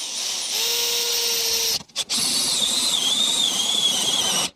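Cordless drill driving a hole saw through the thin painted aluminum skin and luan wall of a camper, a continuous grinding whine with high squealing tones. The drill stops briefly about two seconds in, then cuts on. The footage is played fast-forwarded.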